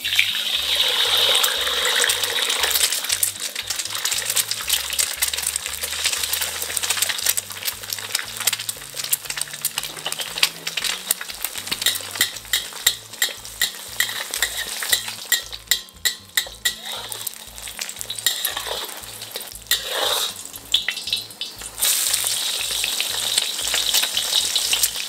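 An egg frying in hot oil in a steel wok: a loud sizzle as it drops into the oil, then steady sizzling with crackling pops of spattering oil, swelling loud again near the end.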